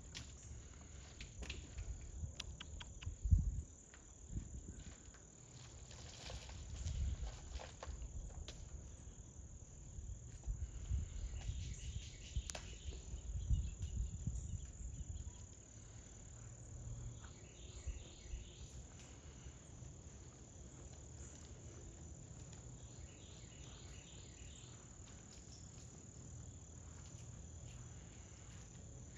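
Steady high-pitched chorus of insects chirping, with low thumps and rustling of handling and footsteps in the first half. The loudest of these is a sharp thump about three seconds in.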